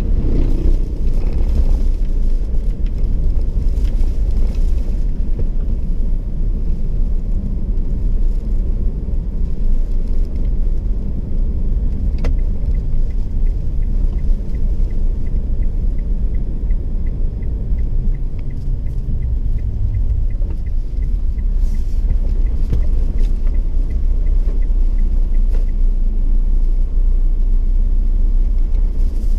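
Steady low road and engine rumble inside the cab of a 2018 Mitsubishi Triton HDX pickup on the move, with a faint regular ticking through the middle stretch.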